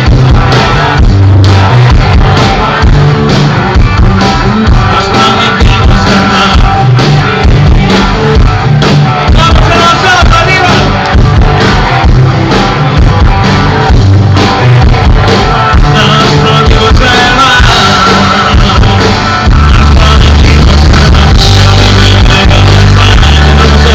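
Rock band playing live, with a singer over guitars, bass and drums. The music is loud and dense, and the bass grows heavier and steadier near the end.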